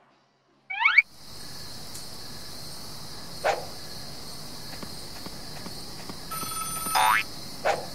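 Cartoon sound effects over a night-time ambience: a short rising whoosh about a second in, then a steady high chirring of night insects with a few sharp footstep taps, and a telephone starting to ring near the end.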